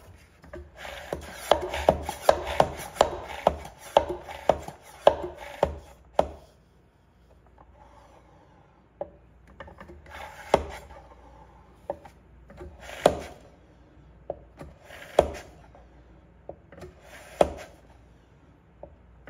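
Hand-operated plunger oil extractor pump being stroked to draw engine oil up through the dipstick tube of a Sea-Doo RXT 215 into its plastic reservoir. Quick rubbing, knocking strokes come about twice a second for the first six seconds, then single strokes about every two seconds.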